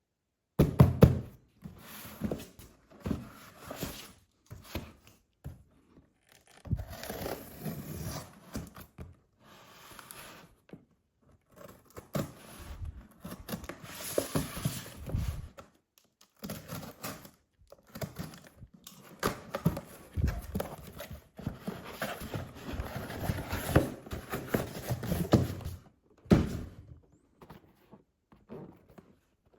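Packaging being handled and opened: irregular knocks and thuds on cardboard, with stretches of tearing and crinkling between them.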